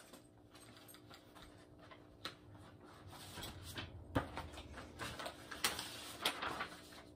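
Faint paper rustling and handling noise as sheets of music are shuffled, with scattered clicks and taps. Nearly quiet for the first couple of seconds, then busier from about three seconds in.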